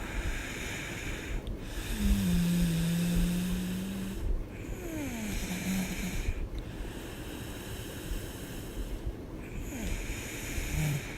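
A woman snoring in her sleep: a breathy snore about every two to three seconds. The strongest, about two seconds in, carries a low steady buzz lasting about two seconds.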